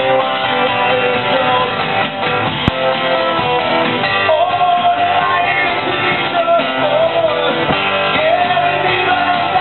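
Live band music: acoustic guitars strummed over an electric bass guitar, with a man singing a held, wavering melody from about four seconds in.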